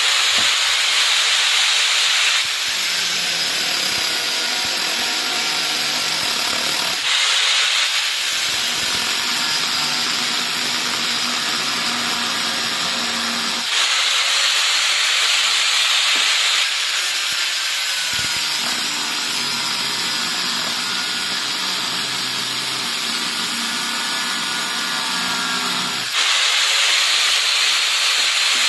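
Angle grinder running with an abrasive cutting disc, grinding through the aluminium casing of a motorcycle regulator-rectifier unit. The sound shifts every few seconds between a bright hissing grind and a lower, strained tone as the piece is pressed into the disc and eased off.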